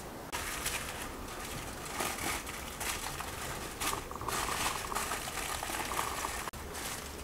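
Aluminium foil crinkling and rustling in irregular crackles as it is folded and crimped by hand into a parcel.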